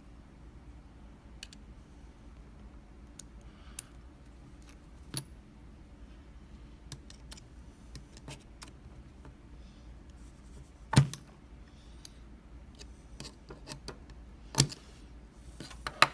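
Small metal clicks and scrapes of a tool working on a euro dimple lock cylinder as it is taken apart, with a sharper metal knock about eleven seconds in and two more near the end.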